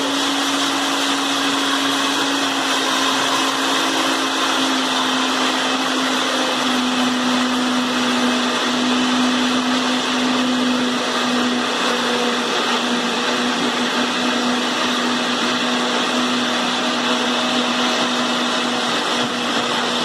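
Electric countertop blender running steadily, blending eggs and oil into carrot cake batter. Its motor hum drops slightly in pitch about seven seconds in.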